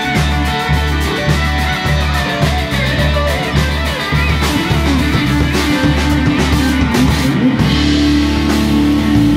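Live rock band playing: two electric guitars over a steady low bass line and drums, with regular cymbal ticks.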